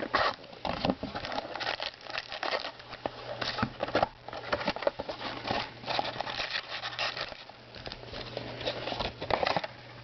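Packaging of a box of baseball card packs being handled and opened: irregular crinkling and tearing, over a steady low hum.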